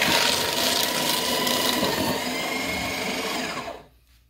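Aurora AS890C paper shredder running, its cutters chewing through sheets of paper held together with staples. The motor cuts out near the end once the paper has gone through.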